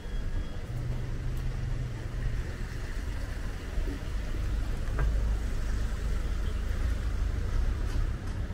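Low, steady rumble of a motor vehicle nearby over street background noise, growing louder about halfway through.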